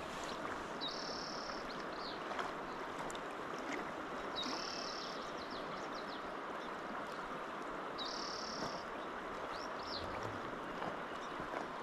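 River current flowing steadily past a cobble bank. Over it, a bird repeats a short, high call four times, about every three and a half seconds, each call followed by a couple of quick softer notes.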